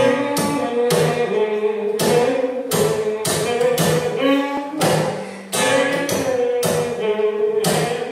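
Music: a melody over sharp, frequent percussive hits.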